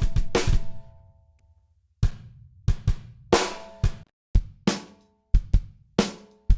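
Drum kit playback of kick and snare: a quick run of hits ending in a ringing tail, a brief silence, then a steady kick-and-snare beat comes back in about two seconds in.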